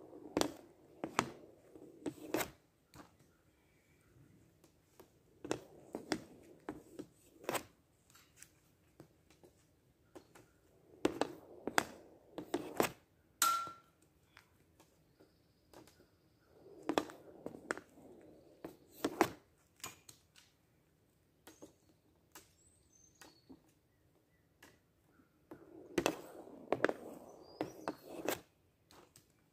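Hockey stick blade clacking and scraping a ball across a hard homemade shooting pad in short bursts of stickhandling, each ending in a shot, about five times. One sharper clack with a brief ring comes about halfway through.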